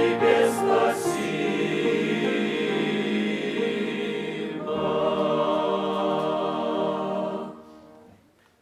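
Mixed choir of men's and women's voices singing the closing sustained chords of a hymn: two long held chords, the last dying away about seven and a half seconds in.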